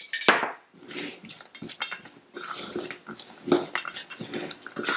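Damp, spice-coated peanuts being stirred and tossed in an enamelled metal bowl: an irregular clatter and scraping of nuts against the bowl, with sharper knocks now and then, as the peanuts are worked to coat them evenly in the gram-flour masala.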